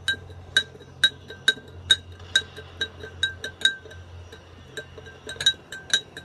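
A metal spoon stirring lemonade in a drinking glass, clinking against the side about twice a second, each clink ringing briefly; the clinks come quicker near the end.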